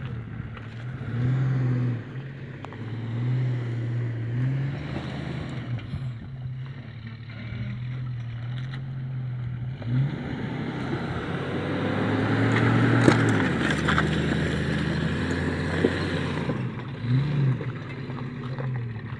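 Jeep Grand Cherokee engine revving up and down as it drives off-road over dirt and loose gravel, with tyre noise. The engine and tyres are loudest a little past the middle, as it works hardest.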